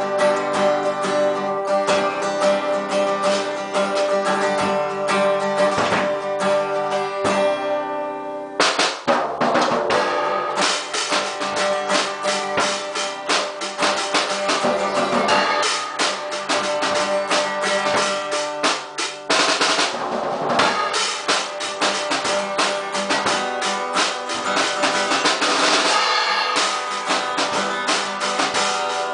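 Acoustic guitar strumming chords with a Rogers drum kit played along, snare and bass drum keeping time. About a third of the way in there is a brief break, after which the drumming gets busier, with cymbals washing over the chords.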